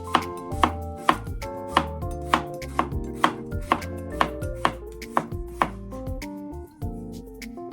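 Kitchen knife chopping on a cutting board, about two even strokes a second, stopping about six seconds in, over background music.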